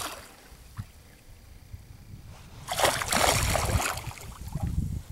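A big hooked silver pike thrashing and splashing at the surface beside a boat, with a loud burst of splashing a little under three seconds in that lasts about a second.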